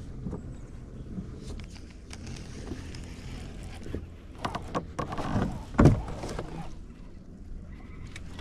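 Handling sounds of a baitcasting reel being cranked from a kayak: small clicks over a steady low background, then a cluster of louder knocks about four to six and a half seconds in, the loudest a single thump near the six-second mark.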